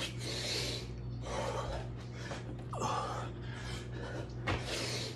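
A man breathing hard, a heavy breath about every second and a half while doing burpees, with a short falling grunt about three seconds in.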